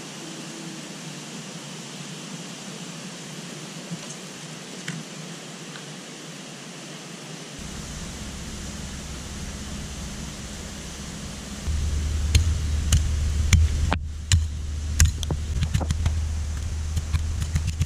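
Small hand digging pick chopping and scraping into loose soil: a run of sharp knocks starting about two-thirds of the way through, with a low rumble. Under it, a steady rushing hiss of flowing river water.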